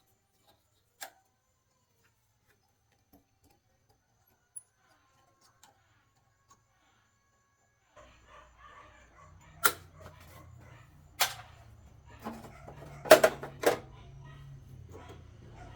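A few sharp knocks, like metal striking metal, over a low steady hum that starts about halfway. Before that there is only a single click about a second in and faint ticks.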